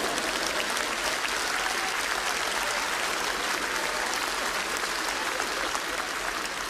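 Studio audience applauding, a dense steady clatter of many hands that thins out near the end.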